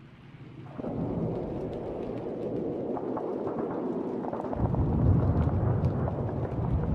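Thunderstorm sound effect: a dense rain-like hiss starts suddenly about a second in, and a deep rumble of thunder joins about halfway through.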